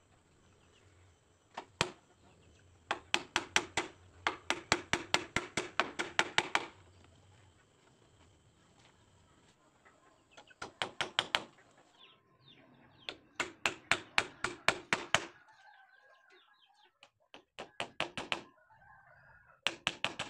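Hammer driving nails into the wooden frame of a boat under construction: one sharp strike, then several runs of quick blows, about five a second, with short pauses between runs.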